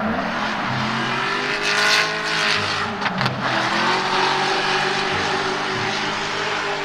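Racing car engine sound revving up and running at speed, its pitch rising in a couple of surges, with a brief sharp noise about three seconds in.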